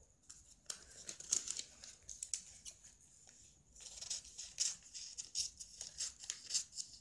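Scissors cutting through folded newspaper: a run of crisp snips about a second in, a quieter pause, then denser cutting from about four seconds in, with the paper rustling as it is held and turned.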